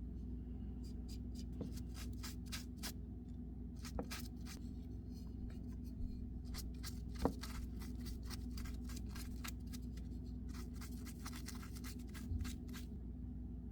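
Knife making short scraping and slicing cuts in white birch wood, in irregular clusters of quick strokes, over a steady low hum. A single sharp tap comes about seven seconds in.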